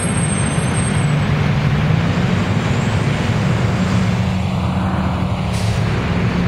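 STM city bus engine running as the bus drives past and pulls away, its low drone rising a little in pitch about four seconds in, mixed with a passing car and street traffic noise.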